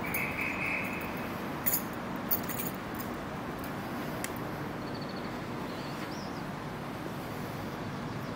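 Railway station ambience: the steady hum of a Class 387 electric multiple unit at the platform, with a short high tone in the first second and a few sharp clicks about two seconds in.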